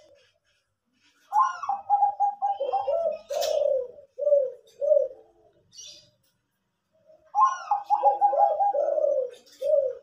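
Caged doves, a Bangkok-strain zebra dove (perkutut) and a derkuku, cooing in duet: two phrases of quick coos, each sliding down into lower, longer coos, starting about a second in and again about seven seconds in.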